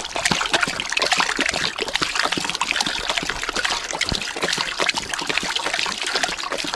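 Rottweiler drinking from a running water pipe: a steady stream of water splashing and splattering off its mouth onto the floor, with dense, irregular wet splats throughout.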